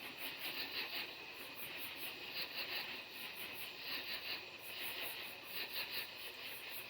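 Night insects calling in a chorus: high pulsed calls repeating in short runs of three or four pulses, with a still higher, even pulsing behind them over a faint hiss.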